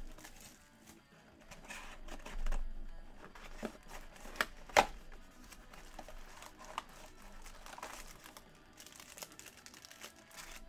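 A Panini Select basketball box being handled and its foil card packs rustling and crinkling, with scattered clicks and taps; a sharp tap about five seconds in is the loudest.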